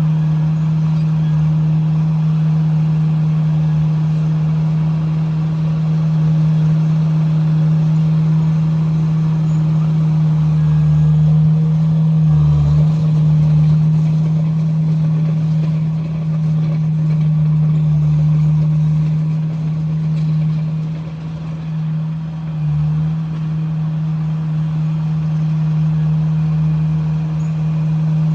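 Komatsu bulldozer's diesel engine running steadily at working speed, its pitch holding even, with two brief dips in the engine note, about a third and three quarters of the way through.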